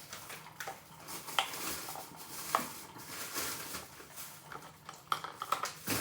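Small ice pieces being pushed out of a silicone Pop-It mold, with a few sharp clicks and clinks of ice, several of them close together near the end.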